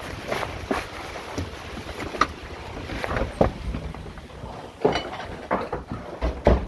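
Storm wind rushing around a car, with irregular knocks and thumps, the loudest near the end.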